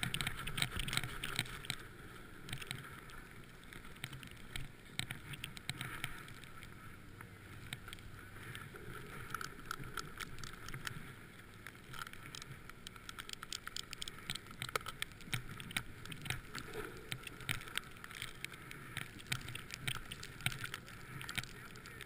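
Snowboard sliding through deep powder snow: a steady, quiet hiss of snow with many small crackles and knocks.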